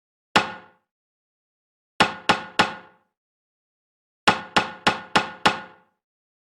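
Wooden judge's gavel rapped: once, then three quick raps, then five quick raps, each strike sharp with a short ringing decay.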